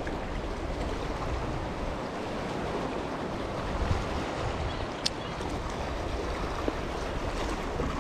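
Sea waves washing against shore rocks, with wind buffeting the microphone. A single sharp click about five seconds in.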